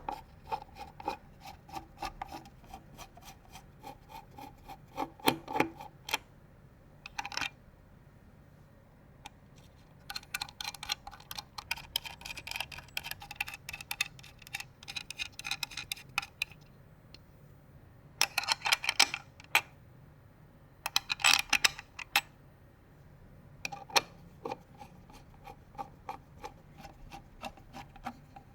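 Computer parts being handled and fitted during a PC build: uneven runs of small clicks, taps and rubbing of plastic and metal, with pauses between them and two louder clattering runs about two-thirds of the way through.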